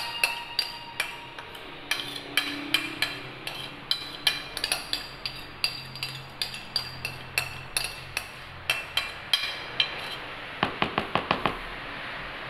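Sharp taps of a utensil on the rim of a dark metal mixing bowl, knocking the last of the ice cream mixture off into a container. The taps come about one or two a second, with a quick run of them a little after ten seconds in.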